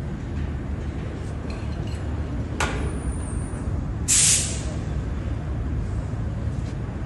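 Compressed air at tyre work: a sharp click and a thin high whistle of escaping air, then about a second later a short loud hiss blast, over a steady low rumble.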